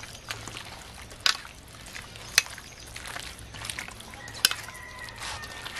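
Hands mixing raw chicken pieces with wet ground spice paste in a steel bowl, with a few sharp clinks against the metal bowl.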